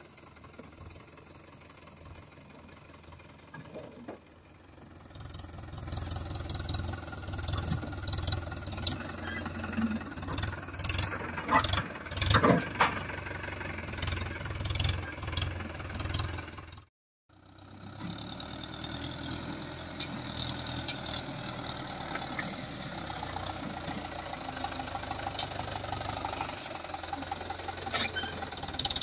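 Mahindra Yuvo tractor's diesel engine running under load while manoeuvring a two-wheeled tipping trailer, quieter for the first few seconds and then louder and steady. A few sharp knocks come about twelve seconds in, and the sound drops out for a moment a few seconds later.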